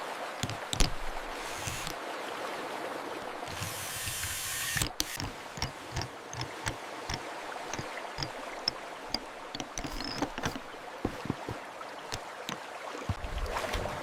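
Water swishing and running in a steady hiss, with many small clicks and knocks of plastic toys being handled. The rush briefly grows brighter about four seconds in.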